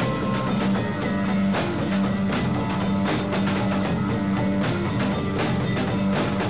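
Rock band playing live: drum kit with steady hits and cymbal crashes under electric guitar.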